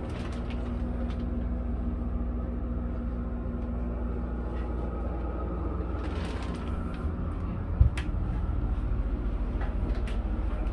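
Steady low mechanical hum and rumble, with one sharp knock about eight seconds in and a faint click near the end.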